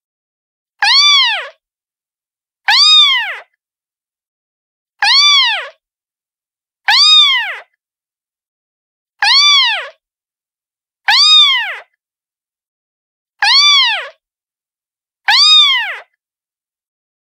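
A cat's meow, the same short call played over and over about every two seconds, eight times, with silence between. Each meow rises and then falls in pitch.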